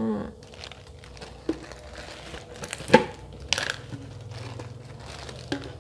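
Thin plastic crinkling and clicking as the screw lid of a clear plastic jar is twisted off and handled, with a sharp click about three seconds in and smaller clicks around it.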